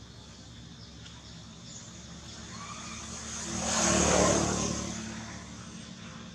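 A motor vehicle passing by: its engine and road noise swell to a peak about four seconds in, then fade away.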